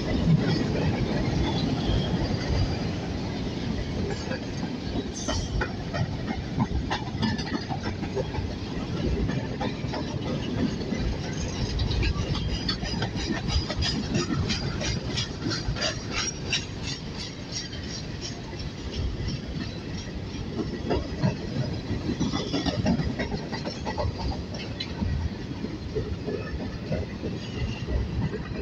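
CSX freight train's open-top hopper cars rolling past at close range: a steady rumble of steel wheels on rail with continual clicking and rattling. A run of quick, evenly spaced high ticks comes through about halfway.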